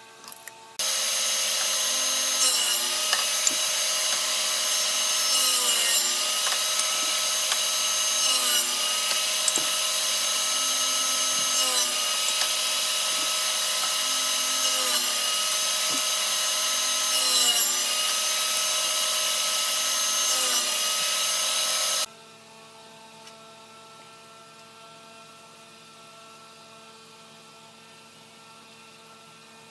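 Electric power sander running on wood, starting about a second in; its pitch drops briefly every few seconds as it bears down on the board. It switches off abruptly about three-quarters of the way through, leaving a faint hum.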